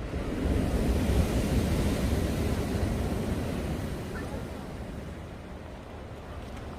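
Wind buffeting the microphone over the wash of sea surf, swelling about half a second in and easing off toward the end.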